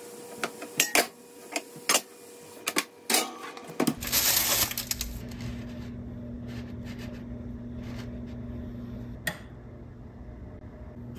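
Clinks and knocks of a Dutch oven and its lid being handled on a glass-top stove, a quick run of sharp clatters. About four seconds in, a short burst of noise gives way to a steady low hum, with a single tap near the end.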